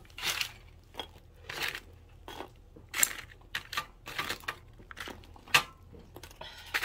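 Metal tongs picking food out of an air fryer basket lined with parchment paper: a string of irregular scrapes and paper crinkles with clicks of the tongs, the sharpest click about five and a half seconds in.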